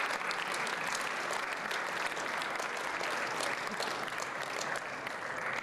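Audience applauding, many hands clapping, easing off slightly near the end.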